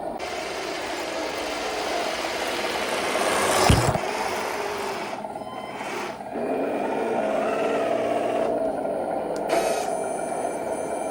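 A 1/16-scale plastic RC tank, an M8 HMC Scott, running with a steady mechanical drone and a hiss, with a sharp knock nearly four seconds in.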